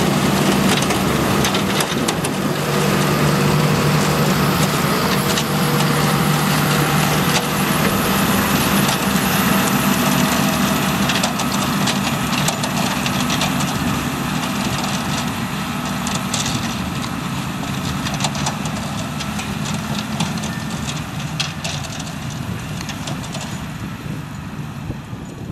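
New Holland TM165's six-cylinder diesel engine running steadily under load as it pulls and drives a twin-row sugar beet harvester, with the harvester's beet-handling machinery clattering and knocking throughout. The sound gradually fades over the last several seconds.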